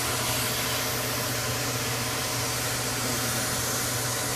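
Vacuum cleaner running steadily with its hose down a narrow hole: an even rushing noise over a low steady hum.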